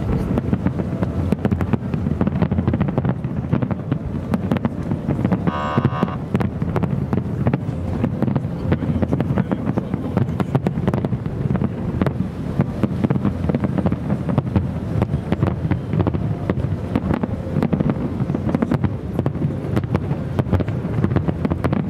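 Distant fireworks display: a dense run of pops and crackles over a steady rumble, with wind on the microphone. A brief pitched tone sounds about six seconds in.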